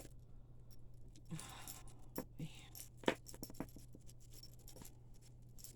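Costume jewelry being handled: beads and metal chains clicking and rattling against each other in scattered small clinks, the sharpest about three seconds in.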